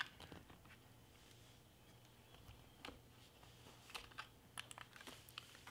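Faint plastic clicks from a DJI Mavic Air remote controller being handled as its folding phone-holder arms are pulled open. The first half is near silent; a few scattered clicks come from about three seconds in.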